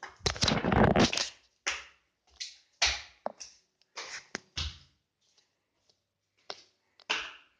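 Footsteps of someone climbing stairs in flip-flops, irregular slaps and scuffs on the treads, mixed with rustling from the phone being carried. A louder rustle fills the first second, and the steps pause briefly past the middle.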